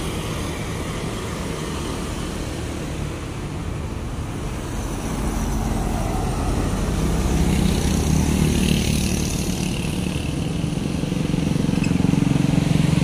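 Road traffic going by. A minibus drives past about halfway through, and motorcycles pass near the end.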